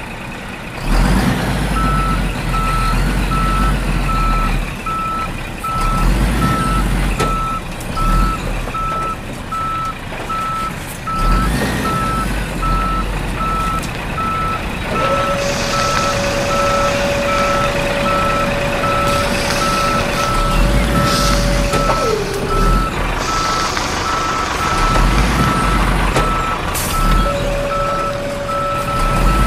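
Dump truck reversing alarm beeping steadily at an even pace, over a low engine rumble that swells and eases. A steady whine sounds for several seconds in the middle, drops in pitch and stops, then comes back briefly near the end, as the tipper bed lifts and the load of soil is dumped.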